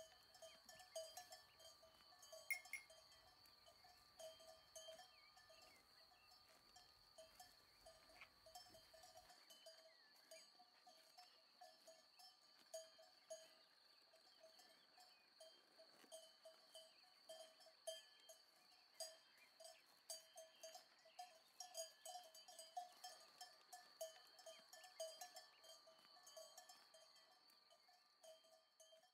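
Faint cowbells clanking continuously, many small irregular strikes over a steady metallic ringing.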